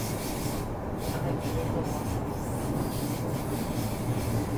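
Tokyu Oimachi Line electric commuter train running at speed, heard from inside the carriage: a steady low rumble of wheels on the rails, with a hiss that comes and goes.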